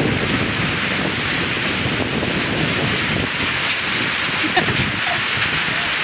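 Heavy rain pouring steadily in a storm, a continuous loud hiss, with strong wind gusting against the microphone.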